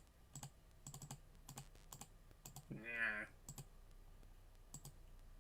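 Computer keys being tapped in an irregular run of light clicks, pausing for a moment before a couple more taps near the end.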